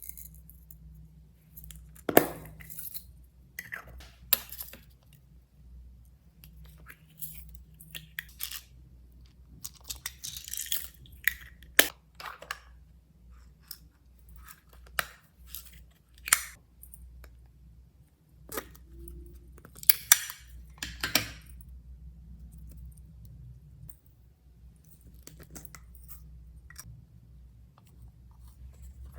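Slime being squished, stretched and mixed by hand: irregular wet clicks, pops and crackles, with a few sharper cracks.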